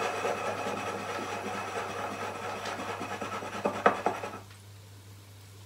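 An upturned cup swirled over a floured countertop, scraping and rubbing steadily as the ball of curd rolls inside it into a round syrnik. A couple of sharp knocks come a little before four seconds in, and the rubbing stops soon after.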